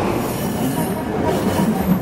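A train running, heard from aboard: a steady rumble and rattle of wheels on the rails, with a faint wheel squeal coming in about a second in.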